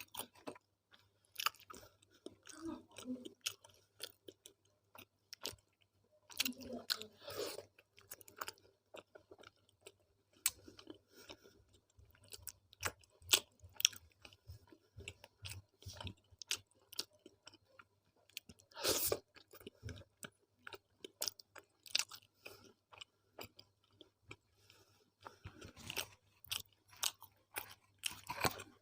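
Close-miked chewing of a mouthful of tawa roti with arhar dal and methi-aloo sabzi: irregular soft clicks and smacks of the mouth, louder about two-thirds of the way through and again near the end, over a faint steady low hum.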